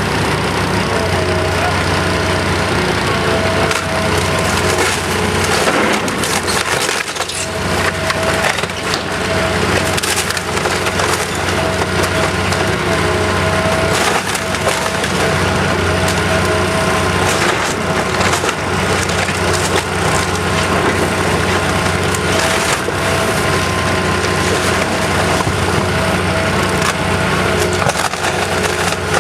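Timber framing of a house cracking and splintering as it is torn down, with repeated cracks and crashes over the steady running of a demolition machine's engine.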